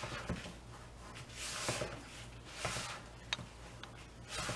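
A spoon stirring a thick, stiffening mixture of cookie crumbs, ground nuts and rum in a bowl: a few soft scraping strokes and a sharp tap about three seconds in.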